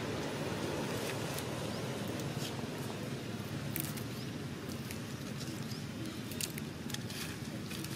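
Scattered faint crackles and clicks of dry leaves as macaques shift about on leaf litter, over a steady low background rumble.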